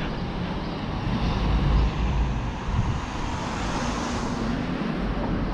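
Road traffic noise from the street beside the sidewalk, with wind buffeting the microphone in a low rumble, strongest about two seconds in. A hiss swells toward the end and fades.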